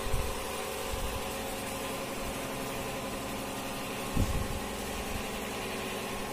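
A steady mechanical hum holding several fixed tones, with a few low thumps: one near the start, one about a second in, and the loudest just after four seconds.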